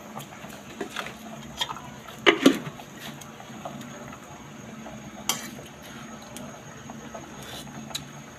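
A utensil stirring sinigang broth in an aluminium pot, with scattered clinks and scrapes against the pot; the loudest pair comes about two and a half seconds in and another a few seconds later. The broth simmers steadily underneath.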